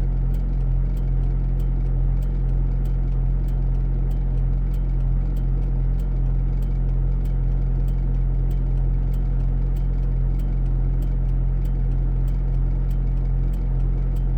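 Vehicle engine idling steadily with a low, even hum. A faint light ticking repeats about three times a second over it.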